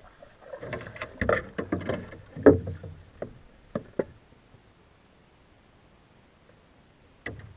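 Wooden canoe paddle knocking and scraping against the canoe as it is laid down, a run of clattering knocks over the first few seconds, then quiet with one more knock near the end.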